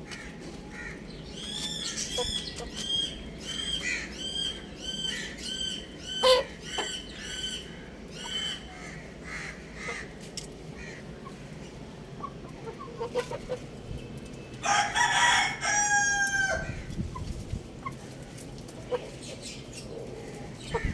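Chicks peeping in a rapid run of high, repeated chirps for several seconds, followed about fifteen seconds in by a rooster crowing once, a call lasting about two seconds.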